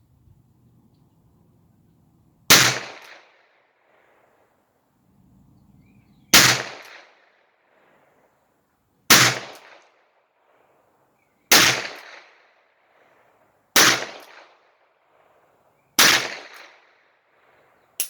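Six shots from a Smith & Wesson Model 17-3 .22 LR revolver, fired one at a time two to four seconds apart. Each is a sharp crack followed by a short echo.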